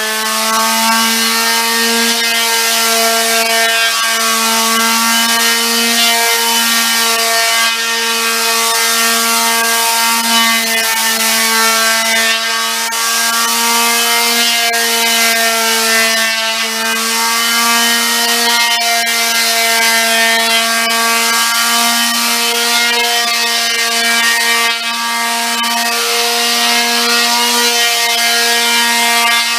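Electric orbital sander running without stopping on a stripped solid cherry tabletop: a steady motor hum with a high whine above it and the hiss of sandpaper on wood, its pitch wavering slightly as it moves over the surface. The sanding is a light pass to clear old finish residue and even out the colour.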